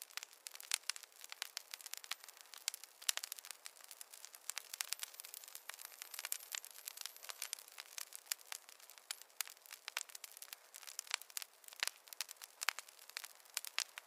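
Wood campfire crackling: a dense, irregular run of sharp crackles over a soft hiss.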